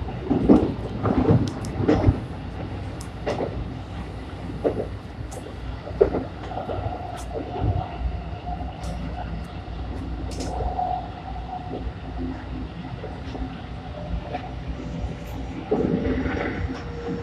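Keikyu 1000-series electric train running, heard from inside the car: a steady rumble of wheels on rails broken by irregular knocks and clicks from the track. A held tone rises out of the rumble for a few seconds in the middle and again near the end.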